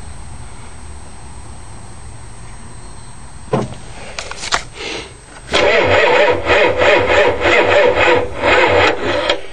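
Starter slowly cranking the 6.9-litre International IDI V8 diesel in laboured pulses, about three a second, without it firing: the batteries are too weak to spin it fast enough to start. A couple of knocks come first, about three and a half seconds in.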